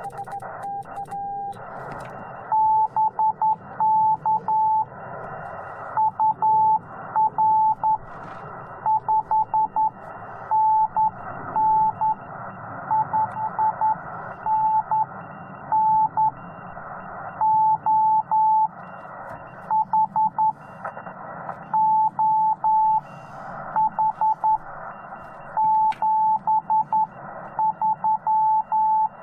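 Morse code from the Yaesu FT-891 transceiver: a fainter, slightly lower tone for about the first second and a half, then a louder single-pitched tone keyed in dots and dashes. A band of receiver hiss drops out while the tone sounds and returns in the gaps between characters.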